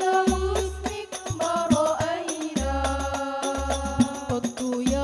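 Hadrah al-Banjari Sholawat music: young women's voices holding and stepping through a melismatic sung line over a busy pattern of hand-struck terbang frame drums, with repeated deep bass strokes.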